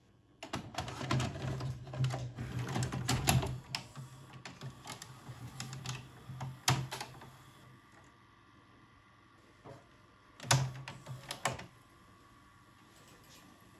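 Grundig GVP 500R VCR's tape mechanism at work on a VHS cassette: a motor runs with a low steady hum while the cassette carriage and tape-threading parts clack and click. The busiest clattering comes in the first three seconds, then a single click about seven seconds in and a short run of clicks about ten and a half seconds in.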